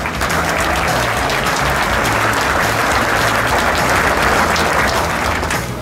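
A large indoor audience applauding, a dense steady clapping that starts at once and dies away about five and a half seconds in.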